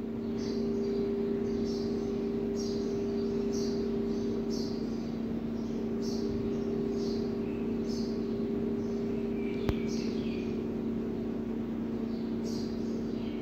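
A steady low hum holding two even tones, with short faint high chirps about once a second and a single sharp click about ten seconds in.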